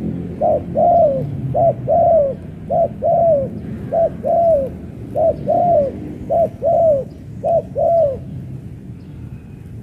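Spotted dove cooing: seven two-note coos in a row, each a short note followed by a longer falling one, about one pair every 1.2 seconds, stopping about eight seconds in.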